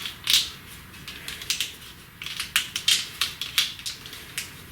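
Wiring harness clicking and rustling as it is handled and pulled through a narrow opening in a truck body. The clicks come at an irregular pace, in small clusters.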